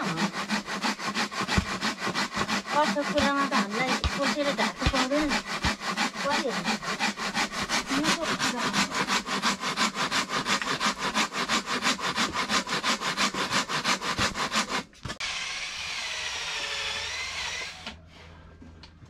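Handsaw cutting through wooden door framing with fast, even back-and-forth strokes, which stop abruptly about fifteen seconds in. A quieter, wavering high sound follows for a few seconds.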